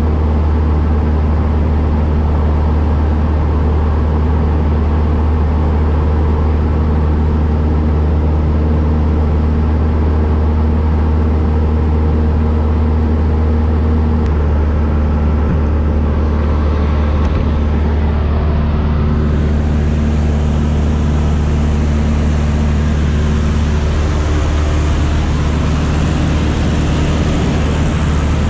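Single-engine light aircraft's piston engine and propeller droning steadily in flight, heard from inside the cabin. A brighter hiss joins about two-thirds of the way through.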